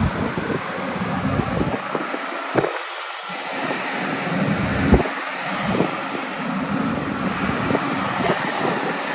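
Wind buffeting the microphone in uneven gusts, with a couple of sharp clicks or knocks.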